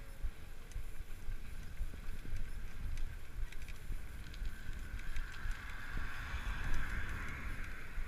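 Wind buffeting the camera microphone and a low rumble while riding a bicycle along a paved path. A passing car on the road alongside swells louder in the second half.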